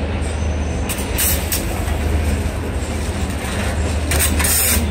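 A steady, loud low mechanical hum like a running engine, with brief crackly rustles and scrapes about a second in and again near the end as burgers are cut and the wrapping paper is handled.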